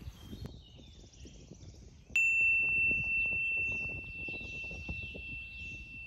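A single sharp strike, then a clear, bell-like high ring that holds one pitch and slowly fades over about four seconds. Faint birdsong in the background.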